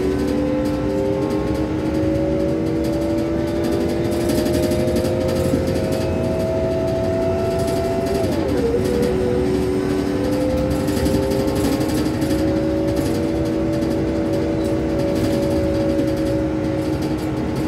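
A vehicle's engine heard from inside the cabin while pulling away: its pitch climbs steadily, drops quickly at a gear change about eight seconds in, then climbs again, over steady road noise.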